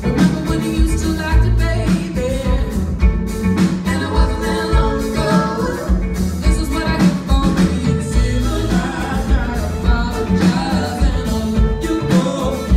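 Live band playing a song: a woman singing lead over guitar, upright bass and drum kit, with a steady drum beat.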